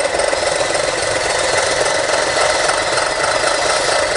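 Radio-controlled model construction machines (bulldozers, dump truck, dragline) running together with a steady, even engine-like mechanical noise.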